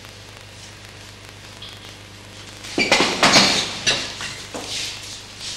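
A sudden loud burst of crackling noise about three seconds in, dying away in a few smaller crackles over the next two seconds.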